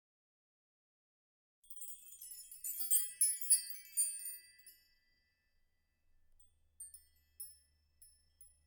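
High, tinkling chime notes in a quick flurry for about three seconds, then a few single, fainter dings near the end.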